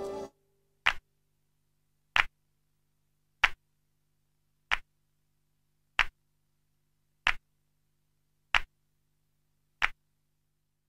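Music cutting off just after the start, then eight sharp, evenly spaced ticks, about one every 1.3 seconds, over a faint steady low hum, like a clock-tick lead-in on the soundtrack.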